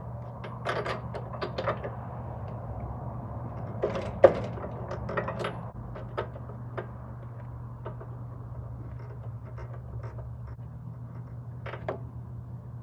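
Scattered metallic clicks and knocks of hand tools being worked on the snowblower, a cluster of them about four to six seconds in, over a steady low hum.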